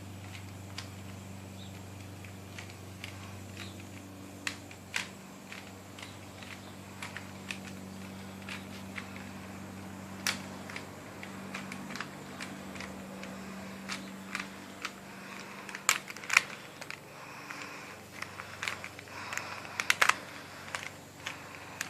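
Plastic Rubik's Cube being turned by hand: scattered clicks and clacks of the layers snapping round, coming faster and louder over the last several seconds.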